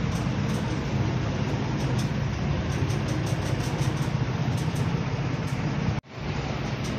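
LPG cylinder-filling pump running with a steady rumble and hiss. The sound drops out for a moment about six seconds in.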